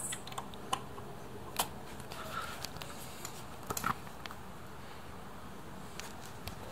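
Scattered sharp clicks and taps of hand tools working on screws, a few of them close together about four seconds in, over a faint steady hum.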